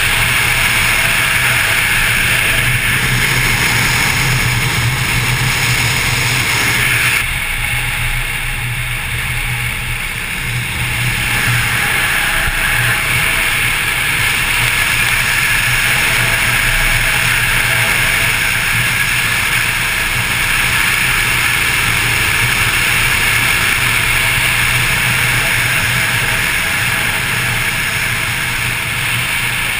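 On-board sound of a motorcycle at road speed: heavy wind rush on the bike-mounted camera's microphone over the steady drone of the engine, easing slightly about seven seconds in.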